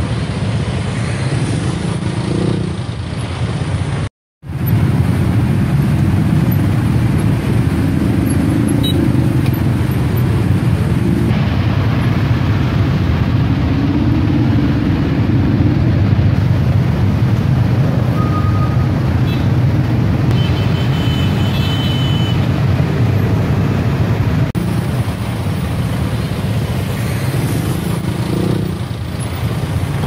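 Steady road traffic noise of cars and motorcycles in congested traffic, a continuous low rumble that cuts out completely for a moment about four seconds in.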